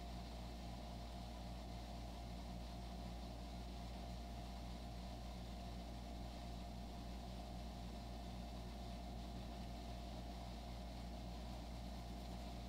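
Steady low mechanical hum of room tone, unchanging throughout, with no sudden sounds.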